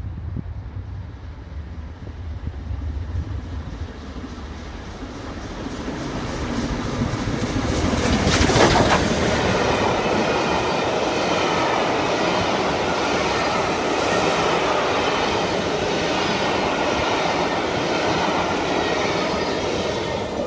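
LMS Princess Coronation Class four-cylinder Pacific steam locomotive 6233 Duchess of Sutherland passing at speed with its train. The sound builds as it approaches and is loudest as the engine goes by about eight seconds in. A long rake of coaches then rushes past with wheels clattering on the rails, dropping away right at the end.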